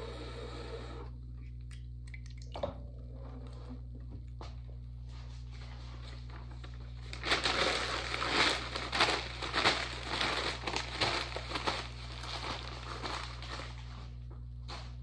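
A stiff plastic bag crinkling loudly as it is handled, starting about halfway through and lasting about five seconds, over a steady low hum.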